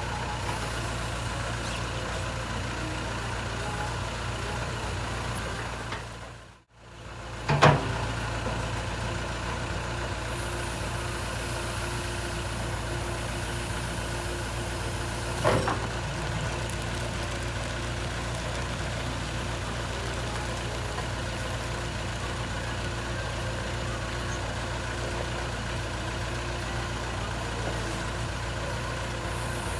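JCB 3CX backhoe loader's diesel engine running steadily. The sound drops out briefly about a quarter of the way in, then comes a loud sharp knock, and a smaller knock about halfway.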